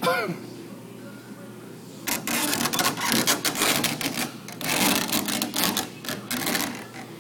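Quick, light tapping on a car body panel with a paintless dent repair tap-down tool, knocking down the high crown beside a dent. Two runs of rapid taps, starting about two seconds in and stopping shortly before the end.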